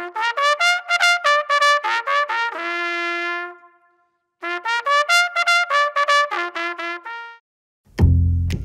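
Short intro jingle played on a trumpet: two phrases of quick short notes, the first ending on a long held note, with a brief silence between them. Near the end it cuts to a loud low rumble.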